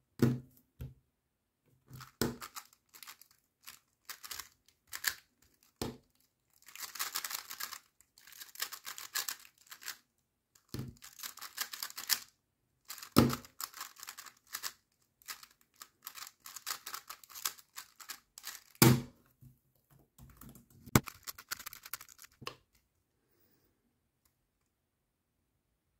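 A 3x3 speedcube being turned one-handed: quick runs of dry plastic clicking and rattling from the cube's layers, broken by a few sharp knocks. The sounds stop about three seconds before the end.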